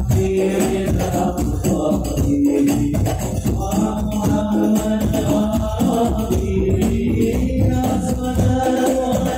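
Sholawat singing with hadrah percussion (frame drums, jingles and a bass drum) played loud through a large sound system.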